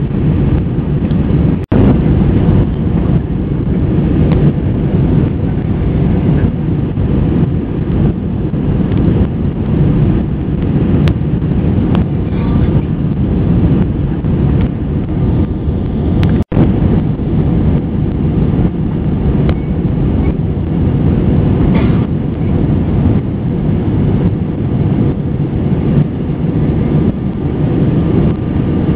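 Steady low roar of an Airbus A320's engines and rushing airflow, heard from inside the passenger cabin in flight. The sound drops out for an instant twice.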